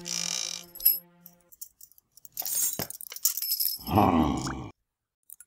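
Animated-cartoon sound effects: a held music chord fades out in the first second and a half, then a short spell of scattered clicks and rattles. About four seconds in comes a brief, pitched, wavering voice-like sound from the character.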